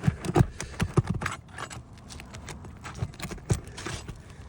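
A roof snake (shingle nail remover) working under asphalt shingles to pull nails: irregular metal clicks, knocks and scrapes against the shingles, as loose granules are knocked off.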